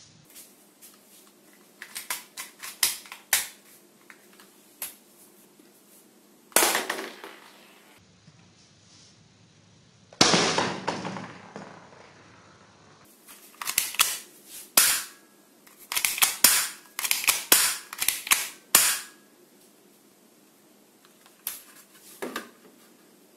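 Black plastic toy pistol being fired: a run of sharp snaps and clicks coming in quick clusters, with two louder bangs that ring on for a second.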